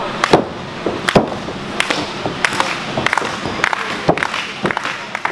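Irregular sharp smacks and thuds over a steady background murmur of a small crowd in a wrestling venue.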